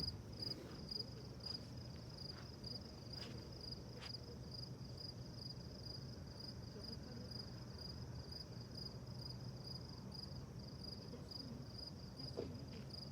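Crickets chirping steadily, a rapid high-pitched pulse of about three chirps a second, over a faint low hum.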